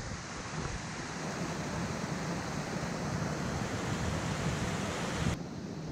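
Steady rush of rainwater running in a flooded forest creek channel. The rush drops off abruptly near the end.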